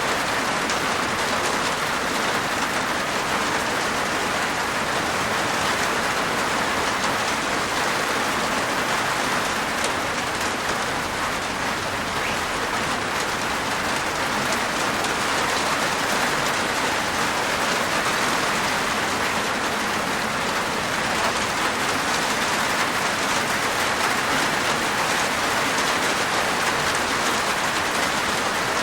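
Steady rain falling on a rooftop: a dense, even patter of raindrops.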